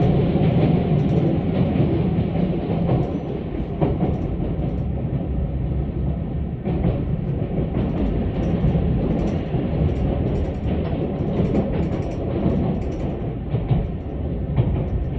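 Keisei AE-series train running, heard from inside the car: a steady rolling rumble and low hum, with occasional clicks from the wheels passing over the rail joints.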